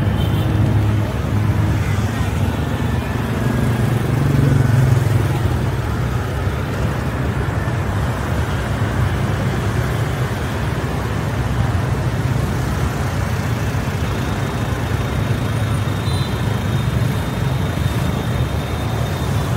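Road traffic heard while driving through city streets: a steady low rumble of engines and tyres that swells briefly about four to five seconds in.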